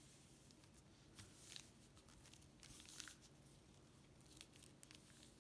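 Near silence, with a few faint soft crinkles of a plastic zip-top bag as hands press it flat onto paper.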